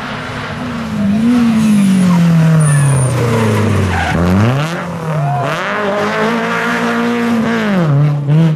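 Rally car's engine taking a bend flat out: the revs fall as it brakes into the corner, then about four seconds in it accelerates hard out of the slide, revving up through two gear changes, with tyre squeal and skidding noise from the sliding tyres.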